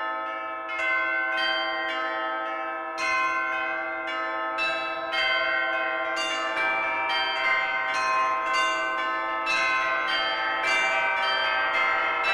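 Church bells ringing, struck one after another, each stroke leaving long overlapping tones. The strokes come closer together toward the end.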